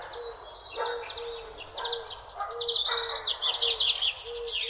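Several songbirds chirping and trilling in quick, overlapping phrases, busiest in the second half, over a short low note repeating about twice a second.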